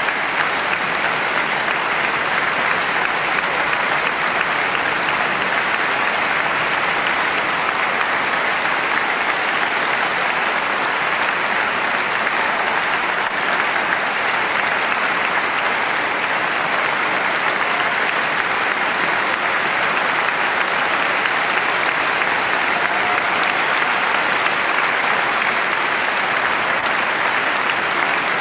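Concert audience applauding, a dense, even clapping at a steady level throughout.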